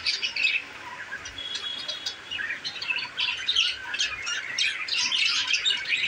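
A flock of budgerigars chattering, a dense run of quick, overlapping chirps and squawks. The calls thin out for about a second near the start, with one short held whistle, then the chatter grows dense again.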